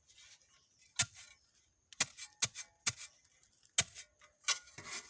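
A digging tool striking into the ground in sharp, irregular blows, about six of them, as a hole is dug for an earth rod.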